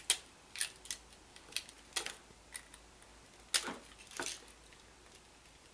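IDC insertion tool pulling copper telephone extension wires out of the insulation-displacement terminals on a phone socket faceplate: a string of small, sharp plastic-and-metal clicks at uneven spacing, the two loudest a little past halfway.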